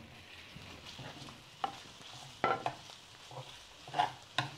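Chorizo frying in hot oil in a clay cazuela, a steady sizzle as it is stirred with a spatula. A few sharp knocks against the clay pot stand out above the sizzle.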